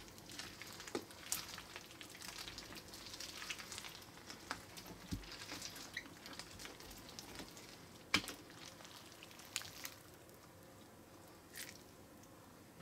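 Hand squishing and kneading clear slime full of Orbeez water beads: faint wet crackling and squelching with scattered small clicks, and one sharper click about eight seconds in. It goes quieter after about ten seconds.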